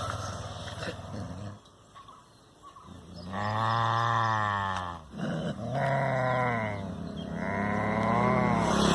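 Dog growling in three long, drawn-out calls that rise and fall in pitch, the first near the middle and the others running on toward the end.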